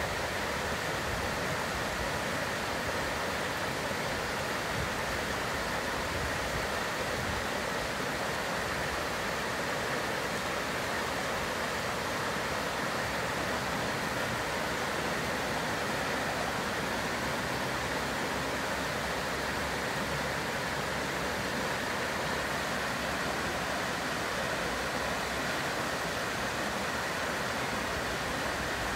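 Shallow rocky stream spilling over small cascades: a steady, even rush of water.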